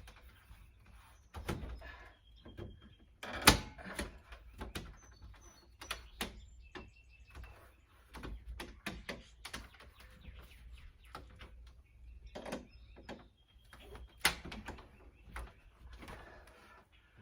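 Clicks, taps and knocks of a flexible screen frame being pressed and pried into a storm door frame with needle-nose pliers, with two sharper knocks about three and a half seconds in and near fourteen seconds. Birds chirp briefly in the background.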